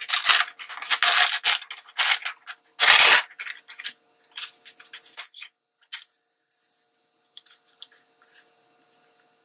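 Glossy magazine paper being torn along a tear ruler: several noisy tearing strokes in the first three seconds, the loudest about three seconds in, followed by softer paper rustling and crinkling.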